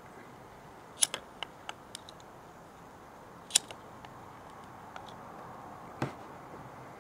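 A few sharp clicks from a lighter being worked over a homemade plastic-bottle gravity bong: a quick cluster about a second in, then single clicks a little after three seconds in and near six seconds in, over a faint steady background.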